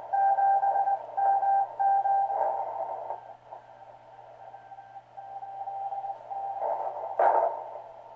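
Morse code (CW) signal received on a Heathkit SB-301 through a 400 Hz crystal CW filter: a keyed tone of about 700 Hz sending dits and dahs over narrow-band hiss. It is strong for the first three seconds, then weaker. A brief sharp crackle comes about seven seconds in.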